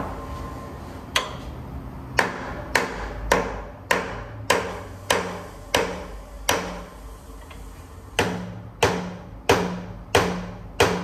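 Hand hammer blows on metal, each with a short ring: a couple of slower strikes, then a steady beat of about one blow every 0.6 s, a brief pause past the middle, and the hammering resuming.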